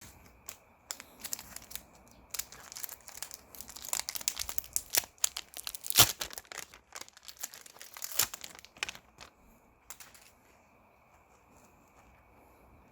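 Crinkling, rustling handling noises with many scattered clicks and one sharp knock about six seconds in, dying away after about ten seconds to a faint steady high tone.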